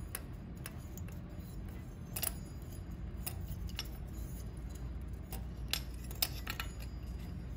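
Light metallic clicks and clinks of flat metal poodle wind-chime cut-outs, fine wire and a small metal tube being handled. The clicks come irregularly, about ten in all, with the sharpest a little past two seconds in.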